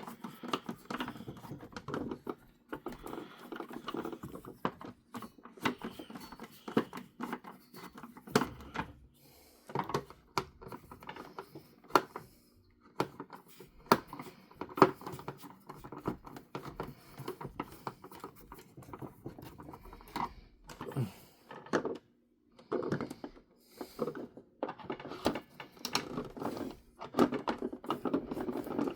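Small screwdriver working tiny screws out of the base of a plastic toy car: irregular clicks, ticks and light scraping of metal on plastic, with the plastic body being handled.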